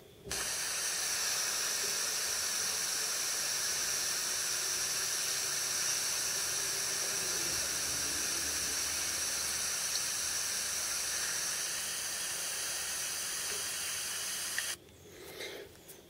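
An iPod Touch 4th generation playing back its own video recording through its small speaker: a steady hiss with no ticking, since the clip was recorded with Wi-Fi switched off. The hiss cuts off suddenly near the end when playback stops.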